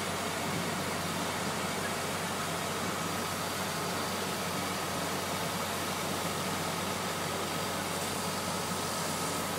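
Fire trucks' engines running steadily, driving pumps and aerial ladders: a constant mechanical noise with a faint steady whine.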